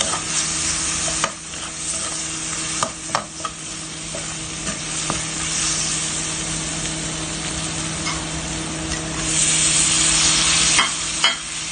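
Onion, garlic and green chillies frying in oil in a pan, sizzling steadily, with a spatula scraping and clicking against the pan now and then. The sizzle grows louder about nine seconds in as chopped tomato goes into the hot oil. A steady low hum runs underneath.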